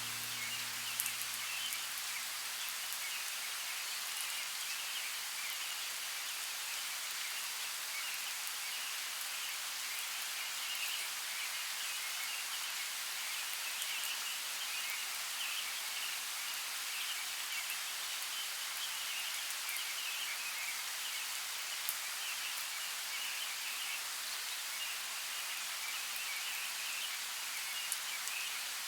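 Steady rain falling, with a few sharper drops standing out now and then. The last of a soft music track fades away in the first couple of seconds.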